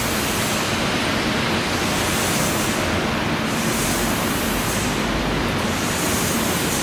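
A steady, even hiss, with a faint low hum under it for the first couple of seconds.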